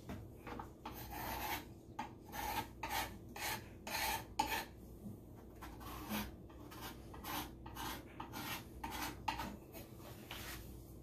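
A kitchen knife making a rapid, uneven series of rasping strokes as it cuts and scrapes through food. The strokes are strongest in the first few seconds and weaker near the end.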